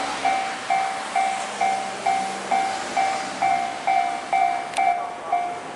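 Japanese level-crossing warning bell ringing steadily, about two strokes a second, over the noise of a passing train that thins out near the end. A single sharp click comes near the end.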